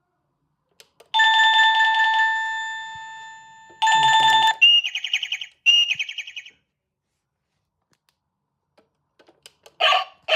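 Wireless doorbell chime unit playing its electronic tones. A bell-like note rings and dies away slowly, a second note is cut off short, and two brief, fast-pulsing warbles follow. Just before the end a recorded dog-bark chime starts.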